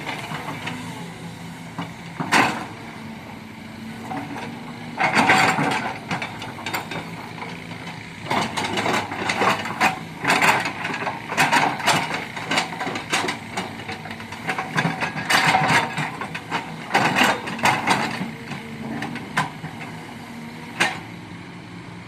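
Kobelco hydraulic excavator at work: the diesel engine runs steadily under a string of sharp clanks and knocks, heaviest through the middle, from the machine's digging.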